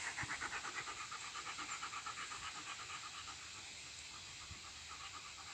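Dog panting fast and evenly, about five breaths a second, fading out about three and a half seconds in.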